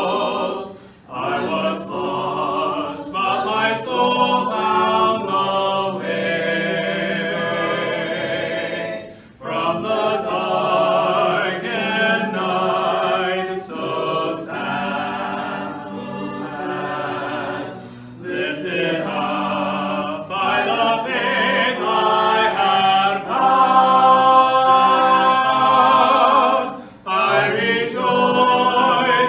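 A group of voices singing a hymn a cappella in harmony, with no instruments. The voices pause briefly between phrases every eight or nine seconds.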